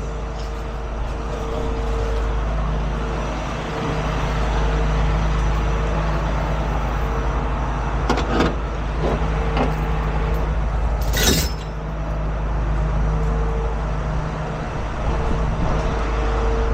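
Heavy truck's diesel engine running steadily with a low rumble, with a few short knocks about eight seconds in and a brief sharp hiss about eleven seconds in.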